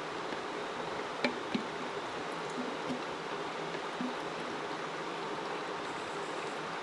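Steady rush of flowing water, with a few faint taps.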